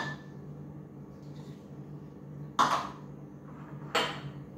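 Kitchen dishes handled on a granite countertop: a clatter about two and a half seconds in and a sharp knock near the end, over a steady low hum.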